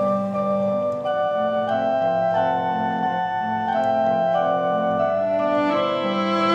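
Instrumental background music: sustained chords that change every second or so.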